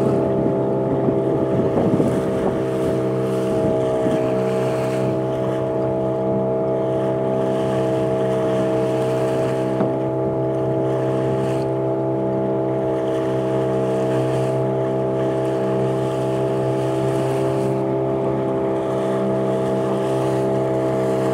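Small fishing boat's motor running steadily under way at an even pitch, with some rough wind or water noise in the first couple of seconds.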